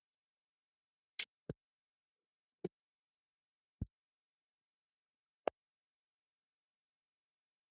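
Five separate sharp clicks and light knocks of a tool and plastic parts as a laptop's bottom cover is being taken off.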